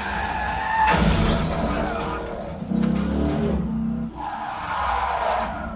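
Action-film car-chase soundtrack played through a Klipsch BAR-48 soundbar: car engines and tyre skids with a sudden crash and shattering glass about a second in, a second loud hit near the middle, under the film's music score.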